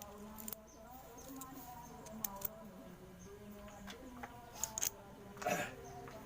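Scattered small clicks and taps of parts being handled and fitted during the repair of a power sprayer pump, with a short cluster of clicks near the end.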